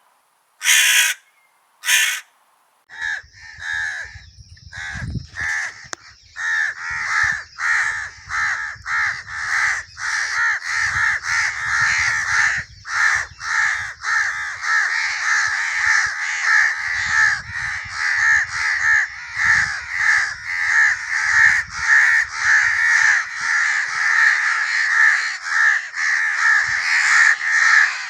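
Crows cawing: two single caws, then from about three seconds in a large flock cawing over one another without a break.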